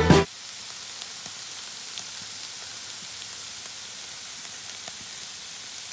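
Marinated chicken pieces sizzling on a hot barbecue grill: a steady hiss with a few faint pops. Background music cuts off just after the start.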